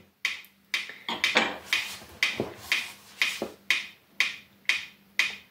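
Wittner Tactell Piccolino mechanical pendulum metronome ticking steadily, about two ticks a second, its small pendulum keeping it going on little energy.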